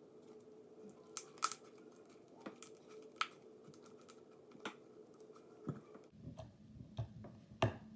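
Slime with Model Magic clay being kneaded and squeezed by hand: scattered sticky clicks and small pops.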